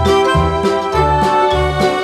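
Instrumental background music: a tune of held notes over a steady bass beat of about two pulses a second.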